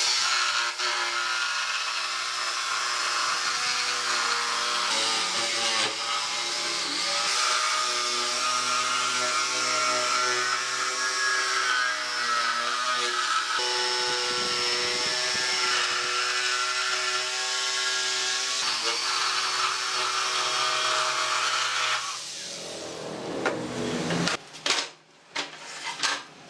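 Makita jigsaw cutting a curved line through a pallet-wood board, the motor running steadily as the blade saws through the wood. It stops about 22 seconds in, followed by a few wooden knocks.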